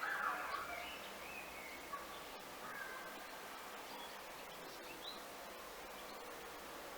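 Birds calling over a steady background hiss: a louder cluster of calls at the very start, then scattered short calls.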